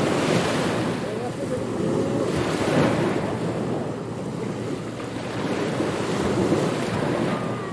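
Ocean waves breaking and washing onto a beach, the surf swelling and easing every couple of seconds, with wind over it.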